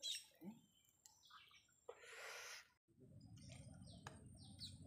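Faint outdoor ambience with a run of short, high bird chirps, about three a second, starting a little past halfway over a low steady background hiss.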